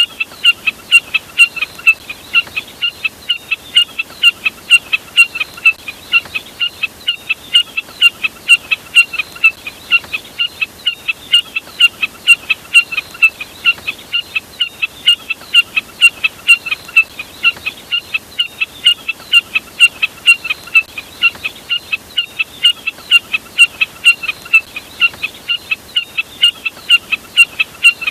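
Jack snipe (burcet) calling: short, sharp high notes repeated steadily about two to three times a second without a break.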